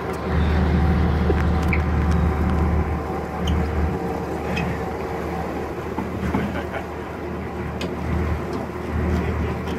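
A boat's motor running steadily with a low hum, with a few faint clicks over it.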